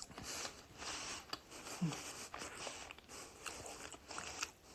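A person chewing and biting into chicken wings close to the microphone: soft wet mouth clicks and smacks, with a brief low hum about two seconds in.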